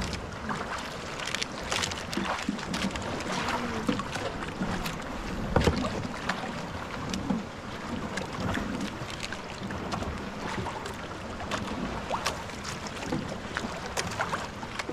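Water lapping against the hull of a small outrigger boat drifting on choppy water, with wind on the microphone and scattered light clicks and knocks.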